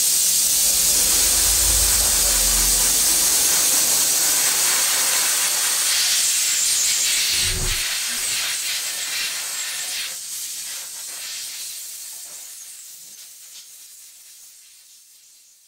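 Flood coolant spraying inside a Tormach 1100MX CNC mill's enclosure as it machines an aluminium part: a loud, steady hiss that fades out over the last several seconds, with a low thud a little past halfway.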